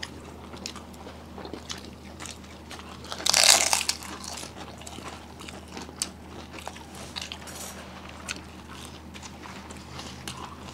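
People eating: chewing and biting, with small wet mouth clicks throughout and one louder, brief crunching noise about three seconds in.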